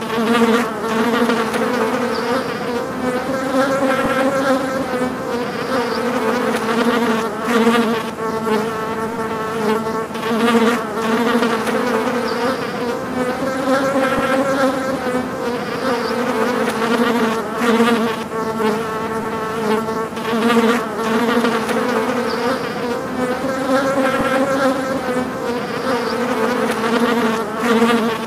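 Flies buzzing in a loud, continuous, wavering drone: a low hum with a stack of overtones that swells and dips every second or two. The same stretch of buzzing recurs about every ten seconds, as a loop.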